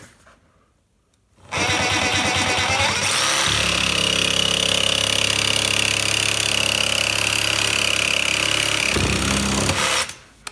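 Small power saw running and cutting through a small L-shaped steel piece, starting about a second and a half in and stopping shortly before the end. A steady high whine runs throughout, and a lower hum joins about two seconds after the start and drops away about a second before the stop.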